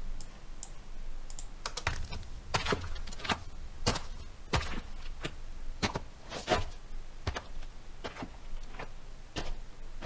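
Foley footsteps of boots on rocky dirt at a steady walking pace, about one and a half steps a second. They are pitch-shifted progressively lower, down toward twelve semitones, to suggest the walker moving away.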